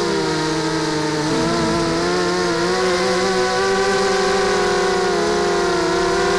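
Brushless motors and 5-inch props of a small FPV quadcopter (Tiger 1806 2300KV motors, Gemfan 5x3 props), heard from its onboard action camera. They make a steady multi-tone buzzing whine whose pitches waver up and down together as the throttle changes.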